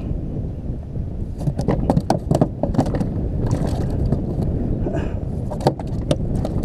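Striped bass flopping on the hard plastic deck of a kayak, an irregular series of slaps and knocks, over a steady rumble of wind on the microphone.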